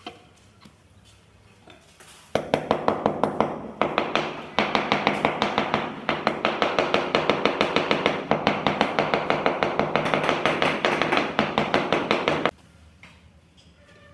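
Rapid, even tapping on tiles being set, about five strikes a second over a low steady hum. It starts suddenly a couple of seconds in and stops abruptly near the end.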